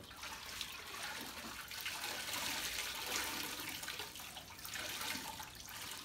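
Water splashing and trickling as wet clothes are wrung out and handled in a washing-machine tub, a steady rushing sound that rises and falls.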